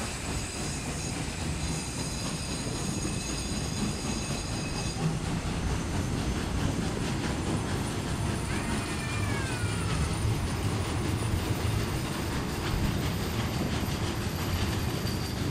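Historic railway passenger coaches rolling slowly past, a steady rumble of wheels on the rails. A thin high squeal sounds over it for the first five seconds or so, and a brief falling squeak comes about nine seconds in.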